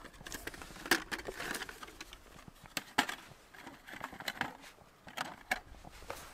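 Light metallic clinks and taps as a thin folding metal windscreen is stood up around a brass spirit stove and its pot on a rock: a few sharp separate knocks, the loudest about a second in and at three seconds.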